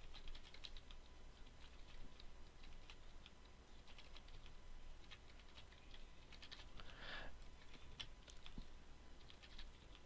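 Computer keyboard typing: faint, scattered keystrokes in short runs as numbers are entered.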